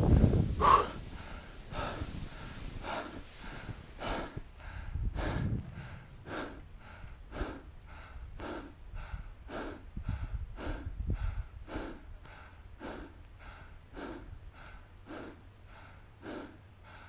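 A person panting hard close to the microphone, quick heavy breaths a little under two a second, out of breath after being caught in a small avalanche. A few low rumbles against the microphone come in the first second and twice more later.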